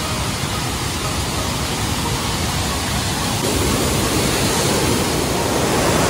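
Steady rush of river and waterfall water, growing louder about halfway through.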